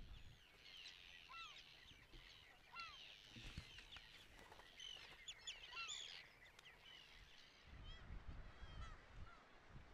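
A seabird colony, with many birds calling over one another in short, high chirping calls that rise and fall in pitch. The calls thin out near the end as a low rumble comes in.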